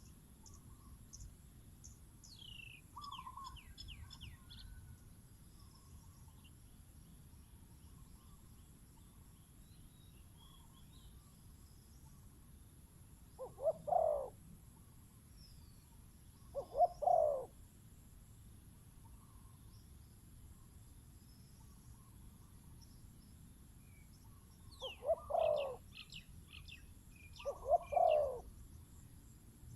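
Spotted doves cooing: four short coo phrases in two pairs, each pair about three seconds apart, the first pair about halfway through and the second near the end. Small birds chirp thinly in the background.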